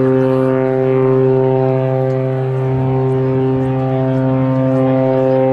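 Cruise ship's horn sounding one long, steady low blast that drops away near the end.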